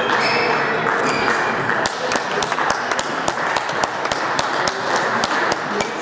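Table tennis balls clicking off rackets and tables, a quick run of sharp clicks starting about two seconds in, over the steady murmur of a sports hall with several tables in play.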